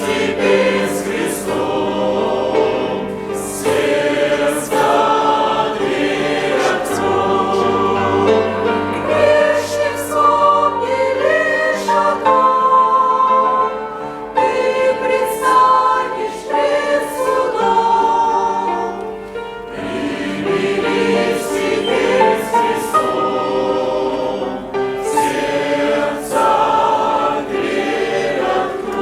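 A church congregation singing a Russian hymn together in harmony, in sustained sung phrases with short breaks between lines.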